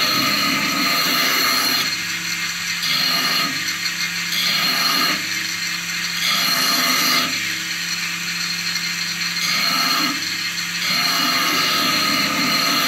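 Belt grinder running with a steady hum while a steel dagger blade's bevel is pressed to the small end wheel of a 100-grit belt in repeated passes. Each pass is a second or two of hissing grinding that swells and eases. The passes take a 36-grit ground bevel to a smooth 100-grit finish.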